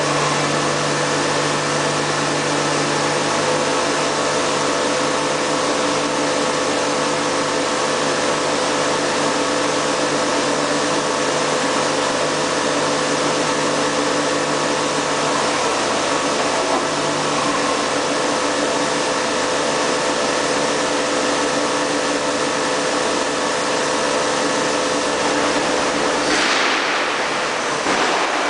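Colchester Tornado 110 CNC lathe running through a machining cycle: a steady machine hum with several steady tones from its drives. A low tone drops out about halfway through, and near the end a brief sound falls in pitch.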